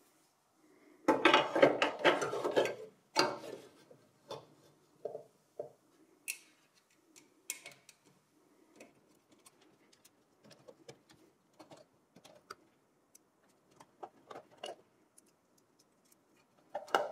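A 3.5-inch hard disk being slid into a desktop PC's sheet-metal drive cage: a loud scraping clatter lasting about two seconds starting about a second in, then scattered small metallic clicks and ticks as it is seated and fastened in the bay.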